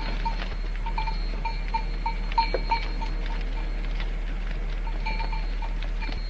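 Goat bells clinking irregularly, several small rings a second, with a few louder clanks a little past two seconds in. A steady low hum runs underneath.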